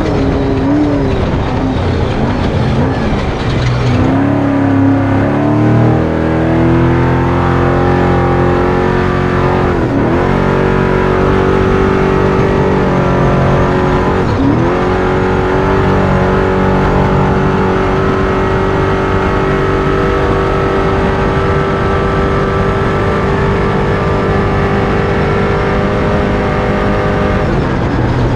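Off-road truck engine under hard throttle: its pitch climbs over the first few seconds, dips sharply twice and comes back, then holds a steady high rev.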